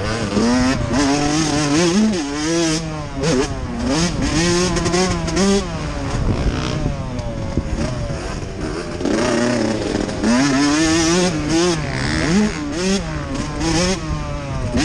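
Dirt bike engine heard from on the bike, revving up and falling off again and again as the throttle opens and closes through the turns and jumps of a motocross track.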